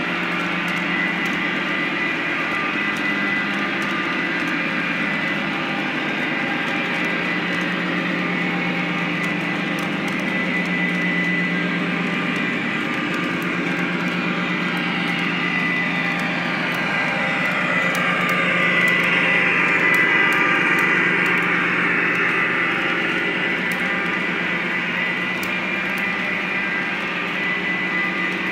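Lionel O-gauge model freight train rolling past on the layout track: a steady hum and rumble of the cars' wheels on the rails. The sound swells a little about two-thirds through, then settles back.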